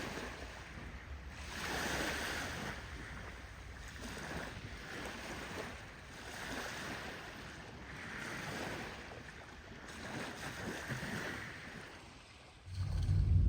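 Small waves washing up on a beach, swelling and falling away every two to three seconds. Music starts with a deep low tone near the end.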